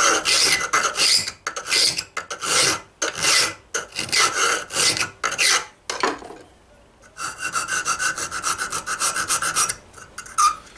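Hand files rasping on the steel knuckles of a barrel hinge held in a vice: long strokes of a flat file at about two a second, a pause of about a second, then a few seconds of rapid short strokes with a small file taking a bit out of a corner so the two hinge halves fit square.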